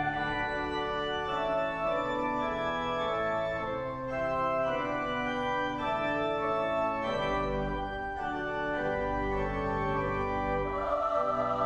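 Pipe organ playing a solo passage of sustained chords that change about every second, with deep pedal bass notes coming in about seven seconds in.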